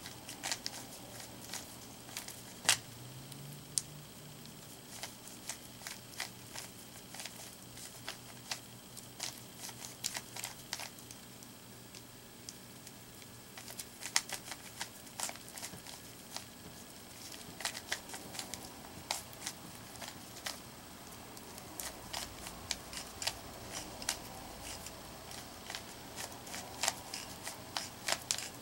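Rubik's Cube being turned by hand: quick, irregular clicks of the plastic layers twisting, in rapid clusters with brief pauses between them.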